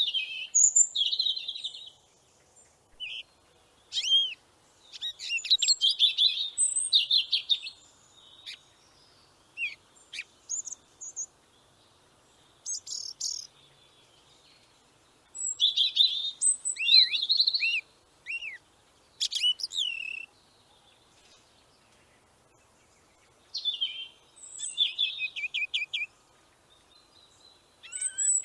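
A small songbird singing in bouts of quick, high chirps, trills and short whistles, each bout a second or two long with pauses of a few seconds between.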